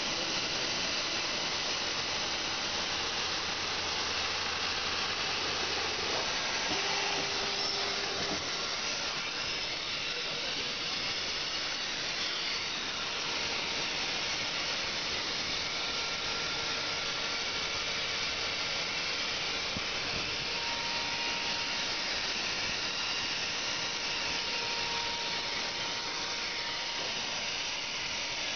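Automatic interior sanding machine running, its abrasive belt grinding against the inside of a spinning aluminium pot: a steady hiss, with a faint low hum that stops about eight seconds in.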